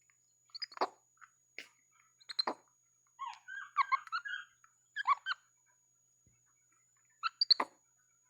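Young capuchin monkey giving short, high squeaky chirps in a handful of bursts, a longer run of them in the middle.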